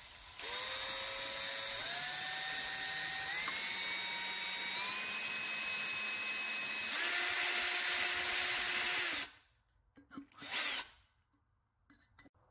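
Small electric drill motor running as jet holes are drilled into an aluminum-can alcohol stove. Its whine steps up in pitch three times, then drops to a lower, louder tone about seven seconds in and stops after about nine seconds.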